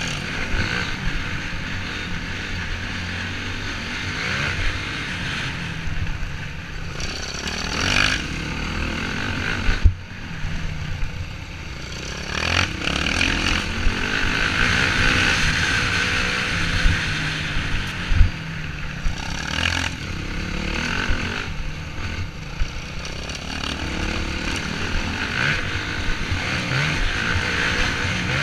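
Off-road dirt bike engine running under changing throttle while riding a rough dirt trail, with a rush of wind noise on the mounted camera. Sharp thumps from the bumps come through, the loudest about ten seconds in and again near eighteen seconds.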